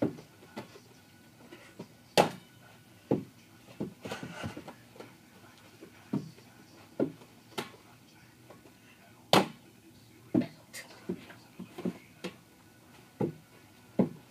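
Irregular thuds of a rubber playground ball bouncing on a carpeted floor, mixed with footsteps, with two louder, sharper knocks about two and nine seconds in.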